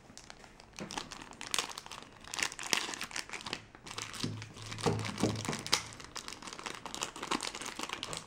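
Plastic bags and bubble wrap crinkling irregularly as they are handled and pulled open by hand to unwrap small silver bars.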